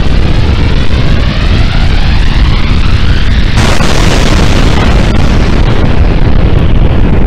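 Explosion sound effect for a mushroom-cloud blast: a loud, continuous deep rumble with a rising whoosh that breaks into a harsher blast about three and a half seconds in, then rolls on.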